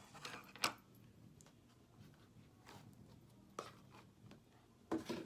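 Slime container being opened and handled: a few faint clicks and knocks, the sharpest about half a second in and a small cluster near the end.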